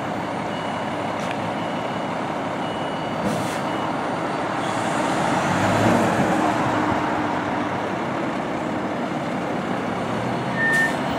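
Fire engine's diesel engine running steadily as the rig moves slowly forward. A reversing beeper starts near the end.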